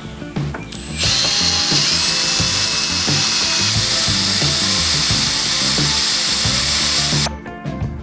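Power drill boring a hole through a metal pipe flange: a steady, high grinding that starts about a second in and cuts off sharply about a second before the end. Background music with a steady beat runs underneath.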